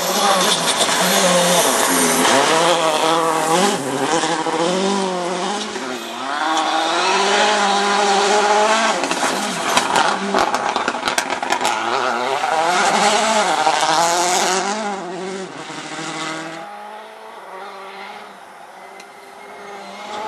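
Citroën C4 WRC rally car's turbocharged 2.0-litre four-cylinder engine revving hard on gravel, its pitch climbing and dropping again and again through gear changes and lifts. Sharp pops and crackles come thick around the middle as it passes, and the sound drops away over the last few seconds.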